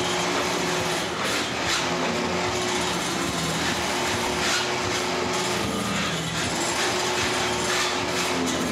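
Noise-art playing of household appliances and metal rods: a steady electric motor hum under continuous scraping, rattling and clicking.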